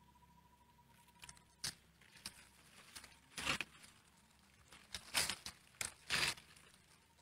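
A hand scraping and rustling through pebbly soil and dry leaf litter while digging up small round hed thob mushrooms. It comes as a handful of short, sharp scrapes and crunches, the loudest in the second half.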